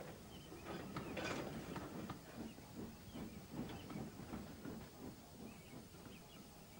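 Model train mechanism on the set's track: a string of irregular light clicks and rattles over a low rumble.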